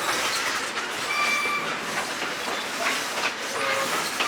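Passenger train of the Great Smoky Mountains Railroad running along the rails: a steady rumble and rattle of the cars with occasional clacks. There are two brief high, steady tones, one about a second in and one near the end.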